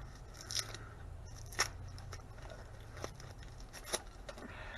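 Scattered sharp clicks and short scrapes, about four louder ones, as varnished aluminum winding wire is worked by hand to strip off its varnish and insulation.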